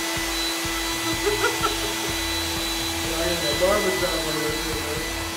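Electric air mattress pump running steadily as a makeshift blow dryer: a constant motor whine over a rush of air.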